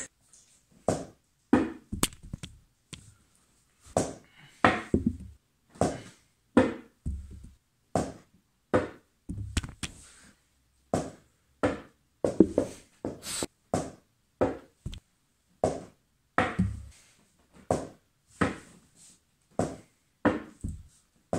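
A small ball bouncing and knocking on a wooden tabletop over and over, one or two sharp knocks a second, some with a duller thud, as it is thrown again and again at a drinking glass.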